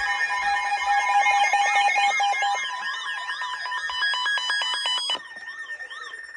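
Weather alert radio alarms sounding: warbling tones that sweep up and down, mixed with steady beeping tones, as if several receivers are going off together. This is the alert for an incoming severe-weather warning broadcast. The loudest tones cut off suddenly about five seconds in, leaving a quieter steady tone.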